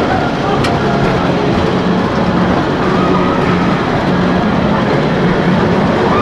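Tomorrowland Transit Authority PeopleMover car running along its track, driven by linear induction motors in the track: a steady running noise of the moving train with a low hum underneath.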